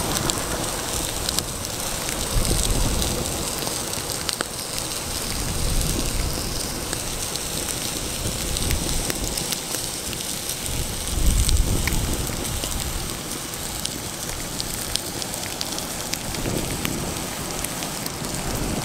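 Wood fire crackling and sizzling under a spiny lobster grilling over the embers: a steady hiss dotted with sharp pops. Low gusts of wind rumble on the microphone several times.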